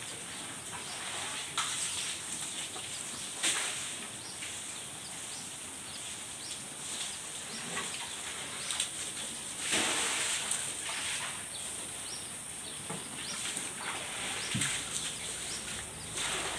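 Holstein-type dairy cows eating fresh-cut grass from a concrete feed trough: rustling and tearing of the grass and chewing, with scattered short clicks and knocks over a steady high hiss.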